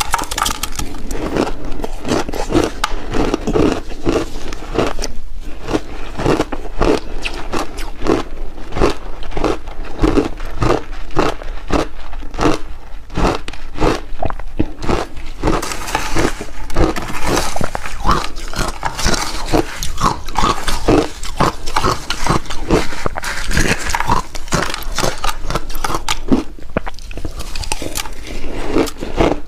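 Close-miked crunching of refrozen shaved ice chunks being bitten and chewed, with rapid, continuous crunches, several a second.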